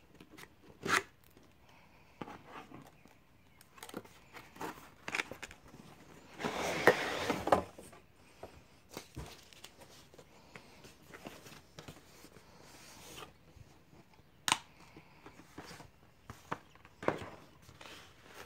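Cardboard graphics card packaging being handled: a scraping rustle for about a second as the black inner box slides out of its outer sleeve, then scattered taps and clicks as the box's lid is lifted off.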